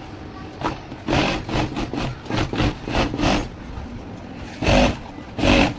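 Juki industrial lockstitch sewing machine running in short spurts as fabric is stitched, speeding up and stopping again and again; the runs begin about a second in and are loudest near the end.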